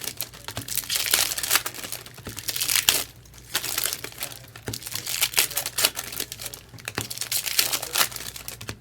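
Foil trading-card pack wrappers crinkling and tearing as packs are handled and ripped open, in irregular bursts with a short lull about three seconds in.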